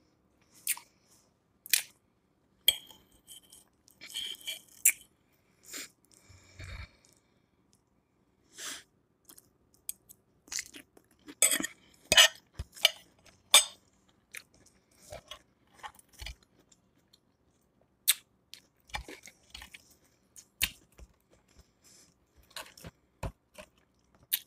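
Close-up chewing and crunching of a mouthful of tossed salad, in irregular crisp crackles and clicks with short quiet pauses between bites.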